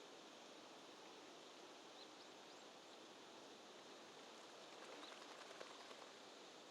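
Near silence: a faint, steady outdoor hiss with a few faint high chirps and some soft rustling and clicking about five seconds in.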